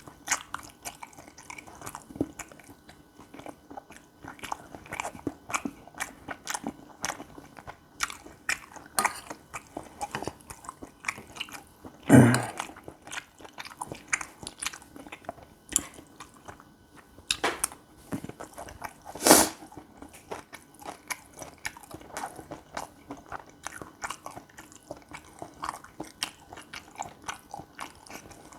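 Close-miked chewing of gopchang fried rice: a steady stream of short wet mouth clicks and smacks, with two louder sounds about twelve and nineteen seconds in.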